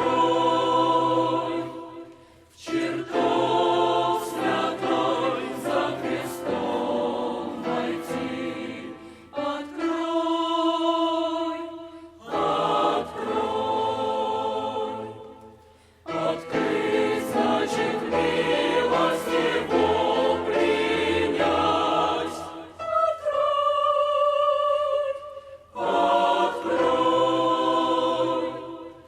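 Mixed church choir singing a Russian evangelical hymn in sustained phrases, with brief pauses between lines.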